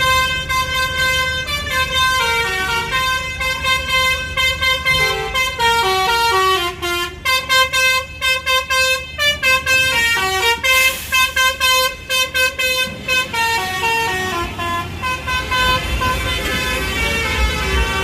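Bus telolet horns, a set of tuned trumpet horns, playing a melody that steps through held notes, then a run of quick, choppy toots, then longer notes again. The low rumble of bus engines runs underneath.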